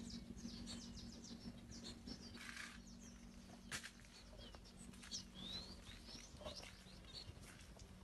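Faint outdoor birdsong: scattered short chirps and rising whistles from several birds, over a steady low hum.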